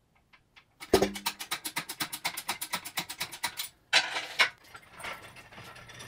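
Lifting chains and hoist on a heavy cast-iron milling machine part: a clunk about a second in, then rapid, even clicking at about ten a second for nearly three seconds as the part is raised off the blued column ways, then two short rattles of chain and metal.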